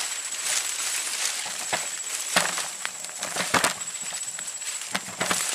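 A steady high-pitched insect drone over a faint haze, with several sharp knocks and rustles, the loudest pair a little past the middle.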